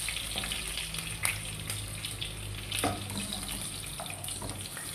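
Hot oil sizzling steadily in a frying pan as whole stuffed potatoes are browned, only to colour them and not to cook them through. A few light knocks break in, as the potatoes are lifted out with tongs.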